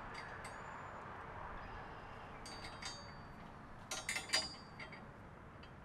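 A few faint, light clinks in two short clusters, about two and a half and four seconds in, over a low background hiss.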